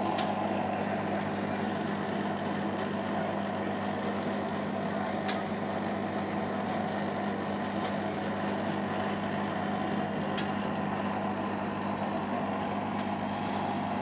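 Beko Eco Care WMA 1510 W washing machine on its final spin: a steady hum from the motor and drum, with a faint tick about every five seconds.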